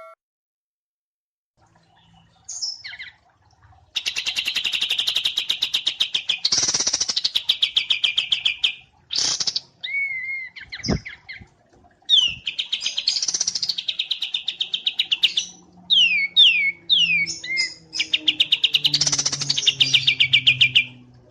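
A small songbird singing: three long, fast trills, each of many rapid pulses, with quick sweeping whistled notes between them. There is a single sharp click about eleven seconds in.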